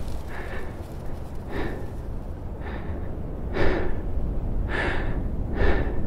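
A person breathing hard, with a heavy gasping breath about once a second and the loudest breaths in the second half, over a steady low rumble.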